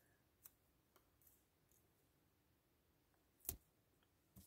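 Near silence, broken by a few faint clicks and taps as card and double-sided tape are handled on a work surface. One louder tap comes about three and a half seconds in, and another near the end.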